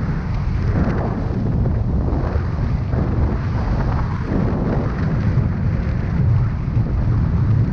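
Wind buffeting a helmet-mounted camera's microphone during a parachute canopy descent: a steady, loud, low rumble with a rushing hiss above it.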